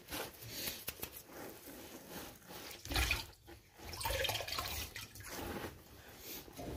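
Water trickling and dripping from the well pressure tank's piping as its fittings are broken loose, with a few sharp knocks from the pipework and tools being handled.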